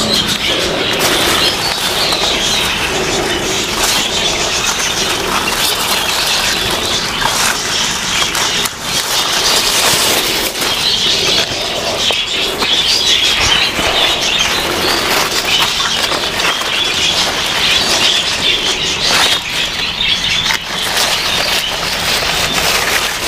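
Steady outdoor garden ambience of light rain falling, with birds chirping over it and scattered small taps and rustles.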